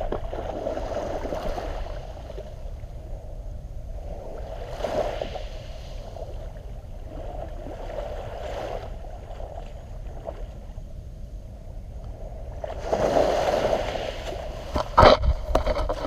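Water washing and sloshing at the shoreline in shallow surf. Near the end it swells into a louder rush for a second or two, followed by a sharp knock.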